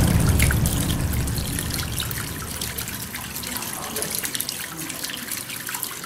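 Water trickling and splashing down a small homemade fountain of stacked plastic bottles filled with pebbles, dripping into a water-filled plastic bottle basin. It is a steady light trickle with many small drips and splashes.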